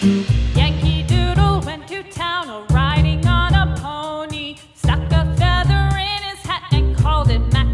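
Background music: a wavering sung melody over a repeating bass beat, with a short break just before the 5-second mark.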